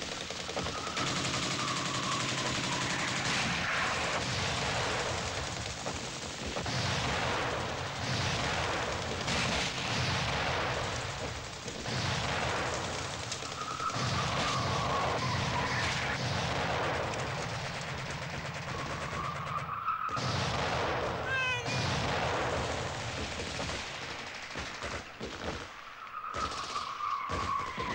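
Battle sound effects from a war film: dense rifle and machine-gun fire mixed with shell explosions. Several whistles of incoming shells cut through the firing: about a second in, mid-way, and twice more in the last third.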